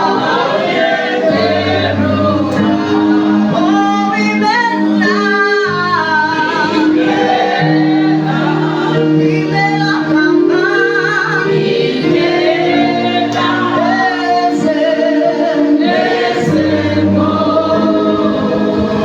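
Gospel praise singing: a praise team's voices singing a worship song together over a keyboard and bass accompaniment, the chords changing every couple of seconds.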